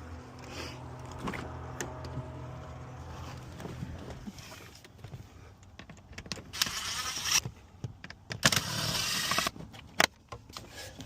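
A small electric motor whirring twice, about a second each time, over a steady low hum, with scattered clicks and a jingle of keys in between.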